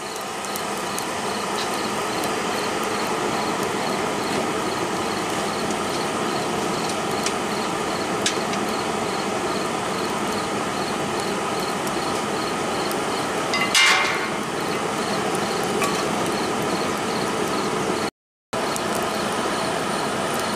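Hair dryer blowing air into a brake drum forge's wood fire: a steady rushing blower noise with a faint motor hum. There is a brief louder burst about fourteen seconds in.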